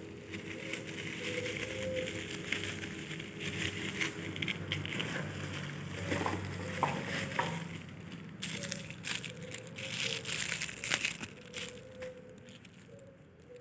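Packaging being handled: crinkling and crackling with many small irregular clicks.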